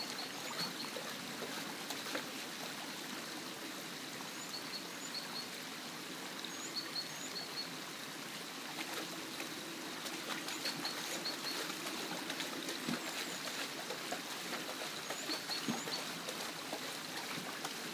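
Stream water running and splashing, with irregular sharp splashes from a dog pawing and biting at an underwater tree root. A small bird chirps in short groups every few seconds.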